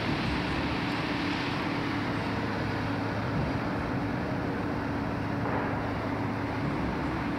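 Construction machinery running steadily at an open-pit metro station site: a constant engine-like drone holding one steady pitch over an even background din, with no knocks or bangs.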